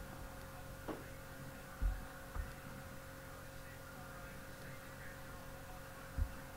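Steady electrical hum with a faint hiss. A light click comes about a second in, and a few short low thumps sound around two seconds in and again near the end.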